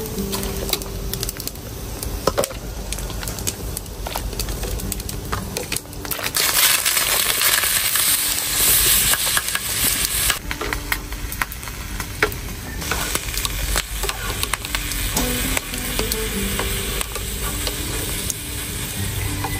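Kitchen cooking sounds: scattered clinks and knocks of utensils against a pot, with a loud hiss starting about six seconds in and lasting about four seconds, then quieter hissing.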